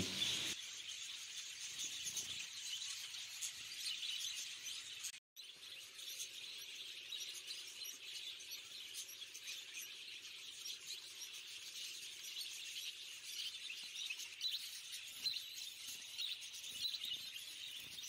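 Faint, continuous chirping of small cage birds, many overlapping short calls from zebra finches in an aviary. The sound drops out for a moment about five seconds in.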